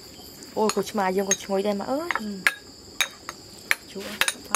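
Utensils clinking against glass dishes at the table: a handful of sharp, separate clinks over the second half. A steady high-pitched cricket drone runs underneath.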